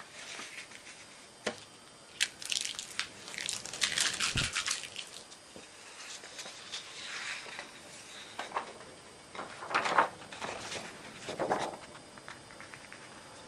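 Irregular rustling and crinkling handling noise with scattered clicks, densest a couple of seconds in, with a few louder crinkly bursts near the end.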